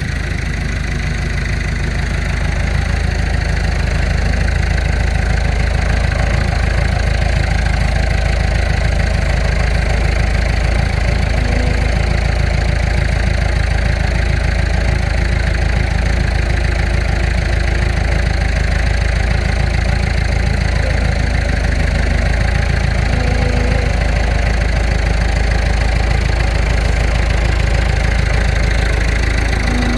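Heavy machine's engine idling steadily and loudly close by, with an even, fast pulsing to its note.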